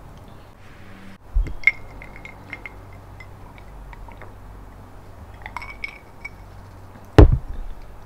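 Tableware clinking at the table: small ringing clinks of utensils and glass, a light knock early on, and one loud thump near the end as something is set down hard.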